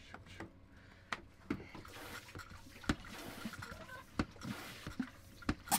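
A suction hose and wand being worked around a flooded battery compartment: a scattering of short knocks and clicks against the batteries and hull, the loudest near the end, with faint sounds of water in the bilge.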